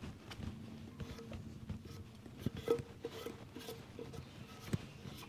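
Faint hiss of an aerosol spray-paint can being sprayed onto a cast-iron engine block in short bursts, with small clicks and knocks from handling.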